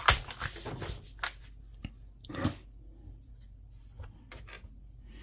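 Plastic Gunpla model kit parts being handled and worked. A sharp click comes right at the start, then scattered light clicks and rubbing, with a louder rustle about halfway through.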